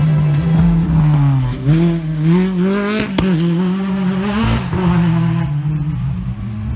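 Rally car engine pulling hard on a gravel stage, its pitch climbing and then dropping sharply at each gear change, several shifts in a row. A single sharp crack about three seconds in.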